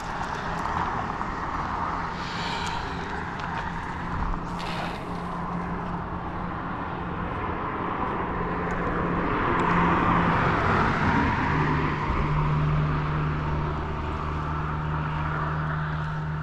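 Road traffic on the bridge: a steady engine hum with a vehicle passing that is loudest about ten seconds in.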